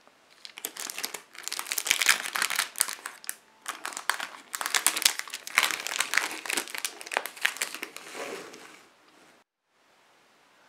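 Clear plastic shrink wrap crinkling and crackling as it is peeled and pulled off a cardboard box, in dense irregular bursts that stop shortly before the end.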